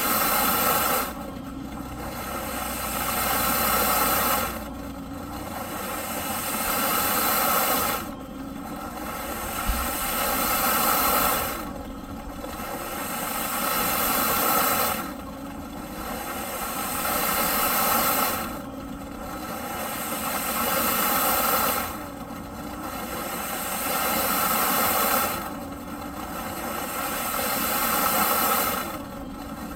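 Eureka PowerSpeed vacuum cleaner's motor running with an airy whine that surges in a regular cycle. It rises over about three seconds, drops suddenly, and repeats about every three and a half seconds.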